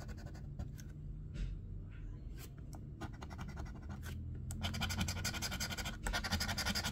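Metal New York Lottery scratcher coin scraping the coating off a bingo scratch-off ticket. A few light, scattered scrapes at first, then rapid back-and-forth scraping from about four and a half seconds in.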